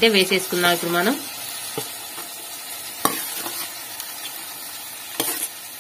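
Boiled green beans being scraped with a spoon off a steel plate into a hot steel kadai, with a soft sizzle of frying and a few sharp clicks of the spoon against the steel.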